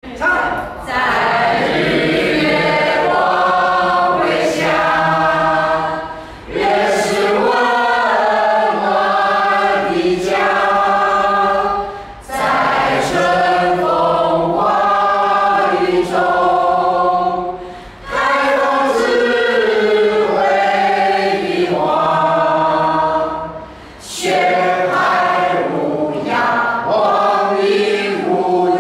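A group of men and women singing their school song together, in long sung phrases with short breaks about every six seconds.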